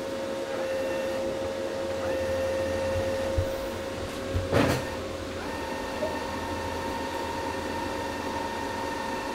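Stahlwerk MIG MAG 200 Puls Pro welder's wire feed motor running with a steady hum as the welding wire is fed through, with a single click about four and a half seconds in.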